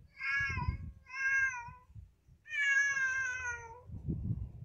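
Ginger tabby cat meowing three times: two short meows, then a longer one that falls slightly in pitch. A few low bumps follow near the end.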